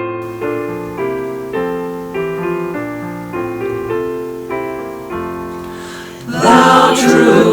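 Piano playing a hymn introduction, a chord struck about every half second and fading between strikes. About six seconds in a choir comes in loudly, singing the hymn with the piano.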